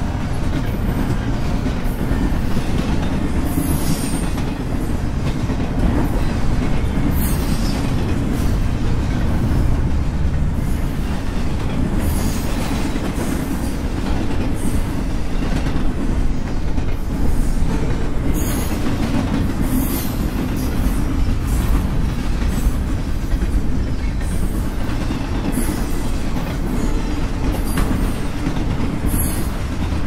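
Double-stack container well cars of a freight train rolling past close by: a steady low rumble of steel wheels on the rails, with a short high-pitched noise from the wheels every few seconds.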